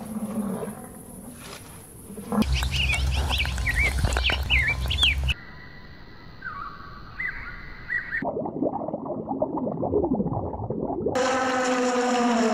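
A string of short animal-call recordings spliced together, changing abruptly every few seconds: chirping calls over a low rumble, then a few short whistles that step up in pitch, and near the end a long call falling in pitch.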